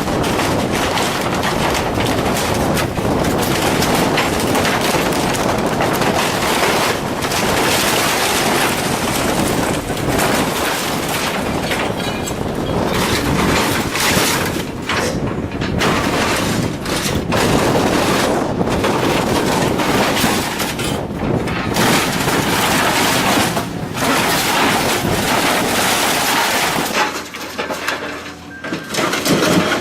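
Heavy machinery shredding and crushing scrap metal: a continuous loud grinding racket with many irregular cracks and crashes of tearing, breaking metal. It thins out and becomes more broken up in the last few seconds.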